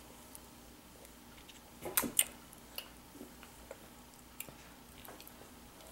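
Faint clicks and taps of a toddler's fingers picking food off a plastic divided plate on a wooden table, with a brief louder double click about two seconds in.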